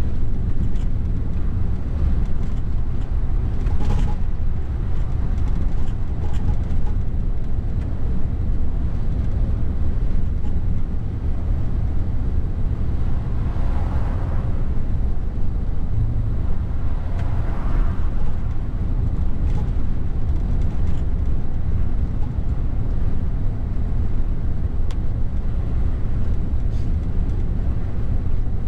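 Steady low drone inside the cab of a Mercedes Actros truck cruising at motorway speed: engine and tyre noise, with a couple of short swells midway.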